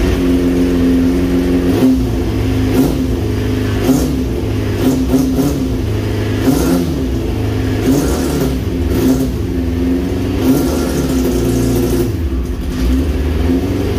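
Kawasaki 400cc inline-four engine in a quad running and being blipped on the throttle, the revs rising and falling over and over; the engine does not want to rev up.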